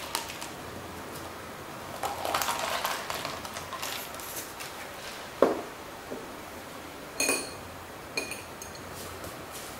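Kitchen handling sounds: a single sharp knock on the counter about halfway, then two short, ringing clinks of a metal spoon against a glass bowl near the end.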